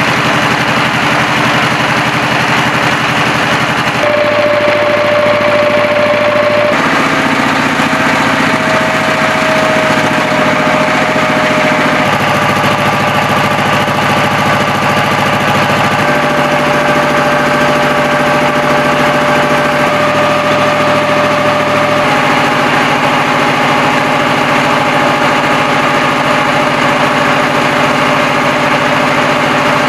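Horizontal diesel engine running steadily under load, driving a three-phase generator on a test run that lights a bulb, with a steady whine over the engine note. The tone shifts abruptly every few seconds.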